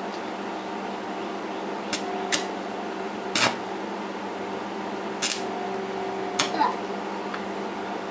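Arc (stick) welding machine humming steadily, with about five short, sharp crackles as the electrode is scratched on the metal to strike an arc. The arc catches only for an instant each time: a beginner whose rod keeps sticking instead of holding an arc.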